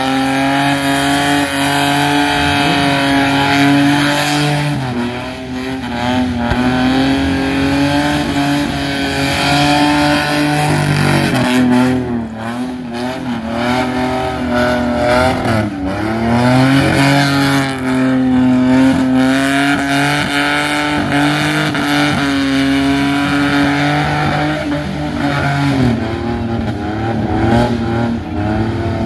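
Holden VN Commodore engine held at high revs during a burnout, its rear tyres spinning and smoking; the revs sag and climb back a few times.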